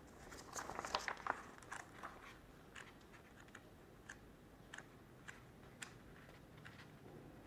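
Faint rustling and scattered clicks of paper pages being leafed through, denser in the first second or so and then only sparse ticks.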